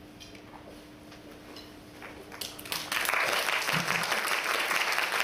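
The last held chord of a grand piano played four hands fades out, and about two and a half seconds in an audience breaks into loud, steady applause.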